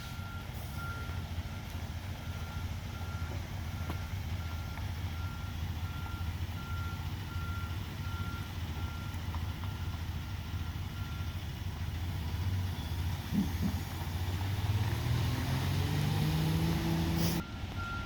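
Heavy equipment's backup alarm beeping about once a second over a steady diesel engine, with the beeping stopping about two-thirds through. The engine then revs up, rising in pitch, before the sound cuts off abruptly near the end.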